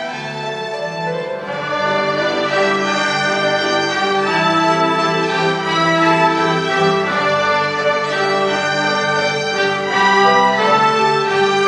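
A string ensemble of violins and cellos playing held notes together, growing louder about a second and a half in.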